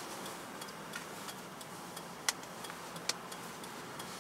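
Steady road noise inside a moving car's cabin, with faint ticking and two sharper clicks about two and three seconds in.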